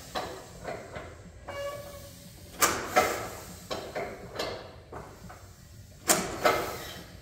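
Antique crawler tractor's engine being cranked and trying to fire after sitting for about 50 years, with sharp irregular pops about every half second to a second, a hiss and a brief squeal, with the throttle held open.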